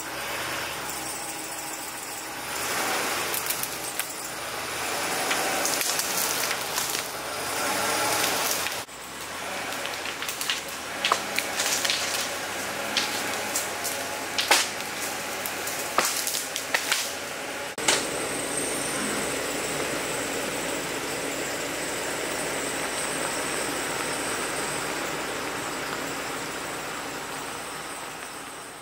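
A fallen tree being dragged along a dirt road by a line from a pickup truck, its branches scraping and cracking, with many sharp snaps in the middle; the truck's engine runs under it, then a steady even engine hum.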